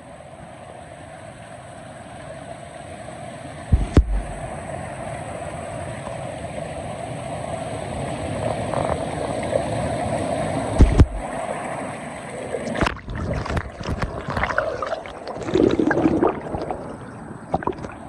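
Steady rush of falling water from a waterfall, growing louder over the first several seconds. Two low thumps come about 4 and 11 seconds in, and irregular knocks and crackles break in near the end.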